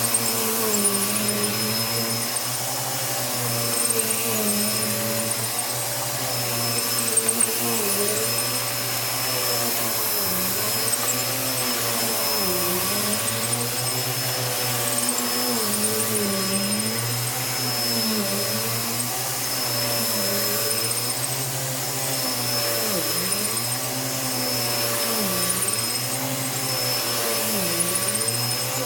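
A Bissell vacuum cleaner running continuously on a rug, its motor pitch dipping and recovering about every two seconds.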